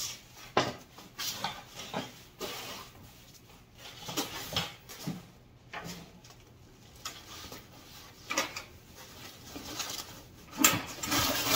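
Thin foam packing sheet being peeled off a tabletop and bundled up: irregular rustling and crinkling with sharp scrapes, loudest near the end.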